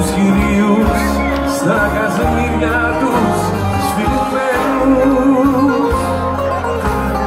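A live Greek band playing, with bouzoukis and guitar over bass and drums, and a male singer singing the melody.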